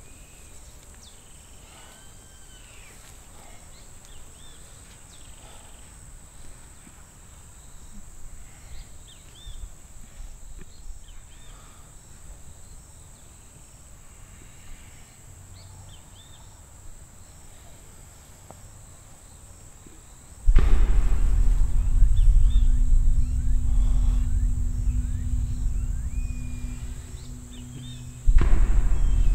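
Quiet outdoor ambience of scattered short bird chirps over a steady high insect whine. About two-thirds of the way in, a loud low droning rumble with a steady hum cuts in suddenly. It falls away briefly near the end, then returns.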